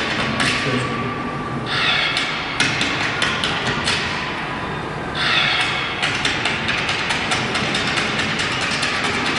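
A troupe of dancers' feet tapping and stamping in unison, a rapid, even clatter of hard hits, with music faint beneath. Two brief louder swells come about two and five seconds in.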